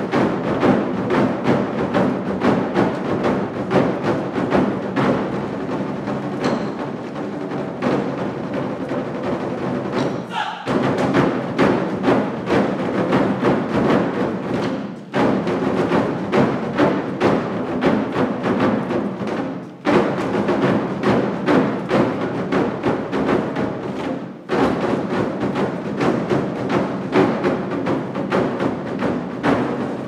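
Ensemble of Twenty-Four Festive Drums, large Chinese barrel drums struck with sticks, playing a fast, dense rhythm together. It breaks off briefly four times, about ten, fifteen, twenty and twenty-five seconds in, each time crashing straight back in.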